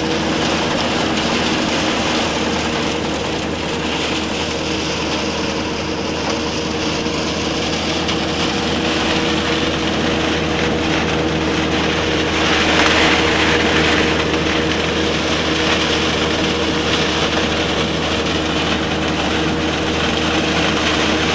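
Powered peanut stripping machine running steadily, a constant mechanical drone with a steady hum. About twelve seconds in it grows louder and hissier for a couple of seconds, then settles back.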